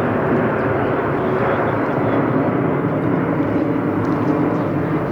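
Steady engine drone and rushing wind noise of an aircraft in flight.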